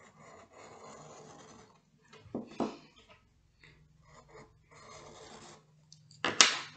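Pencil shading on sketchbook paper: soft, scratchy rubbing in a few short stretches. A couple of light knocks come about two and a half seconds in, and a short, louder knock near the end.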